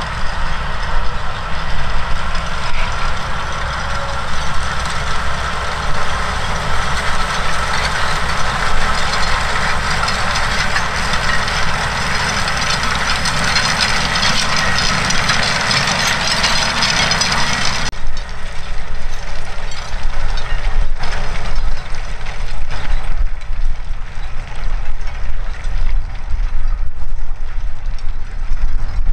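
Claas Xerion 12.650 tractor working under load, pulling a Kelly chain disc harrow through stubble: a steady engine rumble under the dense clattering rattle of the harrow's disc chains. About 18 seconds in, the sound changes abruptly to a mix with more low engine rumble and less high rattle.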